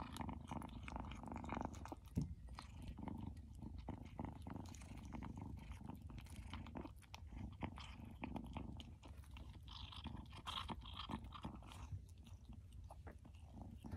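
Black kitten eating from a bowl: faint, irregular small clicks of chewing.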